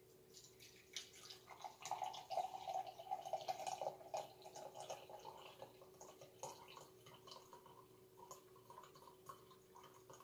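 Coffee running from the spigot of a coffee urn into a ceramic mug. It starts about a second in and is loudest in the first few seconds, the pitch climbing slowly as the mug fills, then thins to a trickle with drips. A faint steady hum sits underneath.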